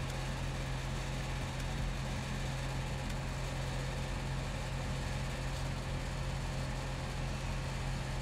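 Steady low hum with even background noise and a few faint clicks.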